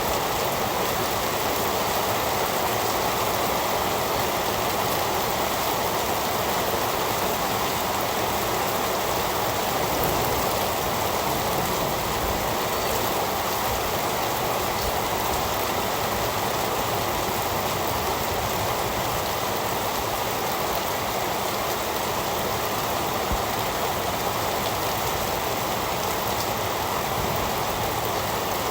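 Heavy rain falling steadily, an even hiss without let-up.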